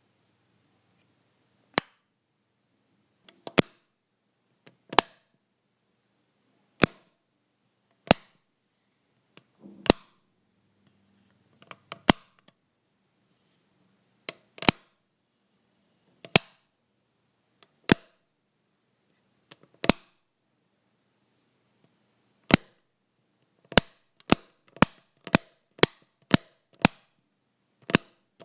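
Anchor plastic wall light switch clicked on and off again and again: single sharp clicks a second or two apart, some doubled, then a quick run of clicks near the end.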